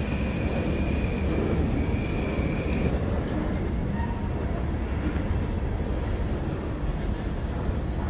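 Covered hopper cars of a freight train rolling past, a steady rumble of steel wheels on the rails, with a thin high squeal over the first three seconds or so.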